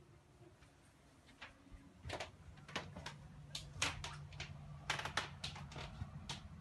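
Footsteps on a wooden boat floor and handling knocks as someone walks through the cabin: a dozen or so irregular clicks and knocks starting about two seconds in, over a faint low hum.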